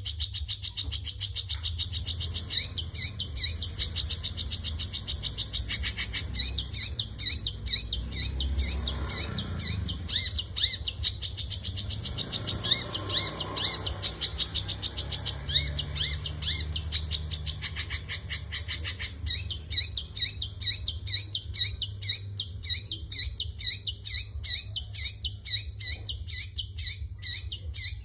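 Long-tailed shrike (cendet) giving a quick, even run of short, high, repeated calls, broken by a brief pause about six seconds in and a longer one around eighteen seconds in; the uploader calls it coughing. A steady low rumble lies underneath.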